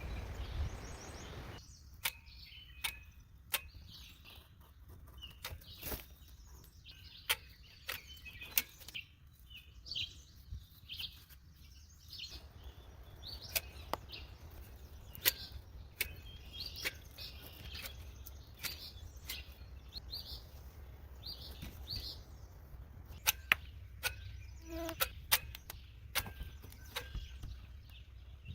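Irregular sharp clicks and knocks, some louder than others, with short high chirps scattered between them over a low steady hum.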